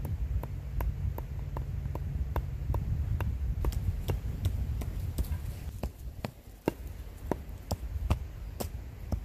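Hatchet chopping lightly into the top of a wooden log: a steady run of sharp chops, about two to three a second, spacing out a little after the middle. A low steady rumble lies beneath and fades about six seconds in.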